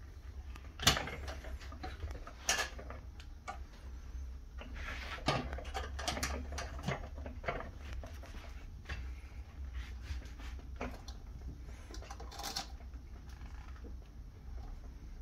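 Handling noises on a homemade steel wood stove: scattered clicks, taps and short rustles as its door, latches and window frames are touched and the front door is swung open, over a low steady hum.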